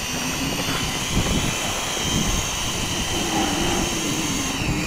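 XK X300 quadcopter's motors and propellers whining steadily in a hover on a depleted battery. The pitch dips near the end as it begins to auto-land.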